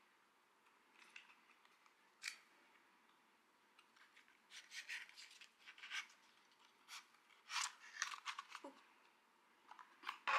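Small cardboard box of an Apple USB-C power adapter being opened by hand: light crackles and rustles of paperboard flaps and a paper inner tray sliding out, sparse at first and busier in the second half, with one short squeak near the end.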